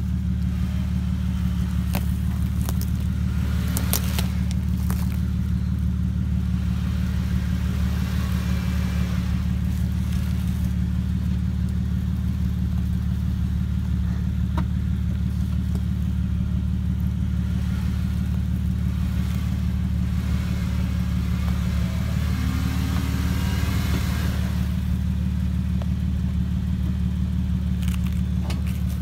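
Jeep Wrangler's V6 engine idling steadily, with a few brief light clicks over it.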